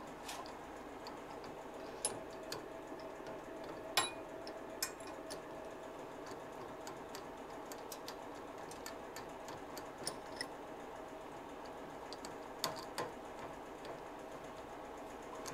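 Scattered light metallic clicks and taps from a drill press chuck being worked by hand to swap the drill bit, over a faint steady hum.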